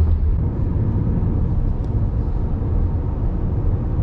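A car driving along a road, heard from inside the cabin: a steady deep rumble of tyre and road noise with the engine underneath.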